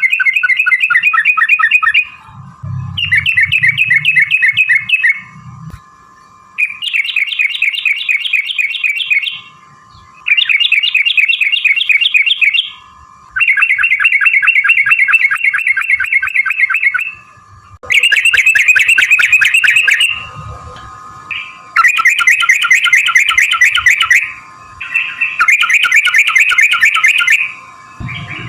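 Yellow-vented bulbul (trucukan) singing its long rolling ‘ropel’ song. It comes as a series of fast chattering bursts, each two to four seconds long, about eight in all, with short pauses between them.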